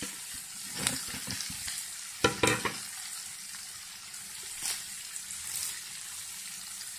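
Sliced onions, green chillies, ginger and garlic sizzling in hot coconut oil in a frying pan: a steady hiss, with a few light knocks, the loudest just after two seconds in.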